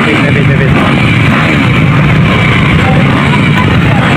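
A pack of motocross dirt bikes running together at the start line, a loud, steady massed engine sound.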